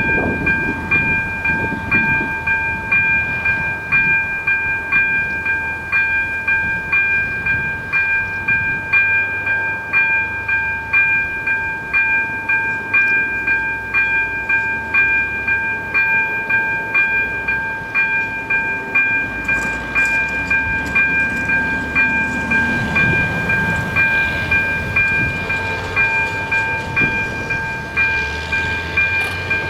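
Level-crossing electric warning bell (ZV-02, with AŽD 97 flashing lights) ringing steadily with an even, repeating pulse, warning that a train is approaching. A car's engine rumbles up to the closed crossing about two-thirds of the way through.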